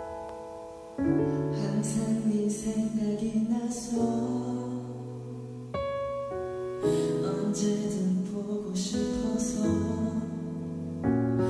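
A gentle pop ballad: piano alone at first, then bass and a fuller band come in about a second in, with chords changing every couple of seconds.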